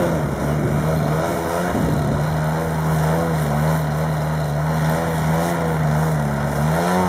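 Large radio-controlled aerobatic model plane hovering nose-up on its propeller, the motor and prop holding a steady loud drone. The pitch sags briefly about two seconds in and again near the end, then rises as the throttle is opened.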